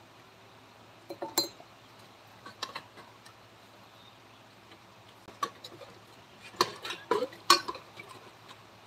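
Irregular clinks and knocks of hard objects being handled: a few separate ones, then a quick cluster from about six and a half to eight seconds in. A faint steady low hum runs underneath.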